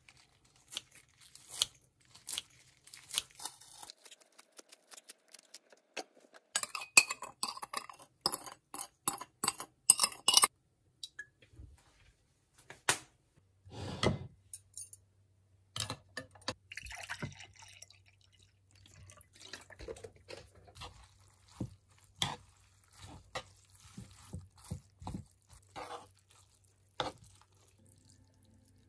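Metal utensils clicking and clattering on dishes: tongs knocking in a wooden bowl as noodles and salad greens are tossed, densest a few seconds in, then scattered clicks of metal chopsticks against the bowl and plate while eating.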